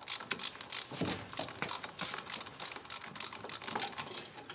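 Ratchet wrench clicking in quick, uneven strokes, about four or five clicks a second, as the bolts holding the fuel pump to a 1931 Chevrolet six-cylinder engine are undone.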